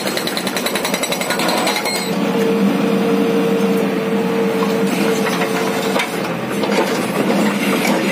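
Hydraulic rock breaker on a JCB 3DX backhoe hammering rock, a rapid steady pounding of the chisel, with a steady hum running underneath.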